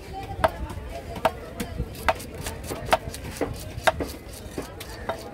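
Heavy cleaver chopping tuna into chunks on a thick wooden block: sharp knocks of the blade through the flesh into the wood, a strong one a little less than every second with lighter taps in between.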